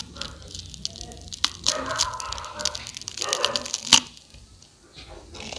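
Crispy fried rice cake being bitten and chewed: a run of sharp crunching cracks, the loudest a single hard bite about four seconds in.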